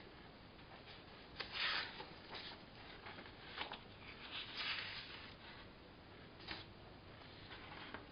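Sheets of paper rustling and rubbing as they are handled, in several short bursts, the loudest about a second and a half in.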